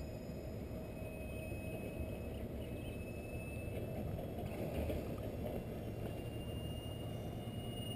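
Steady low rumble of a jet airliner flying high overhead, with a faint steady high whine.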